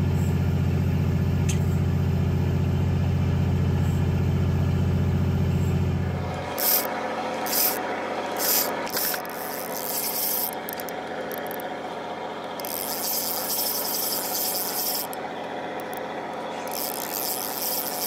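A steady low machine hum from the fishing boat for about six seconds, which cuts off abruptly. After it, irregular rubbing and scraping as gloved hands handle a spinning reel and rod close to the microphone.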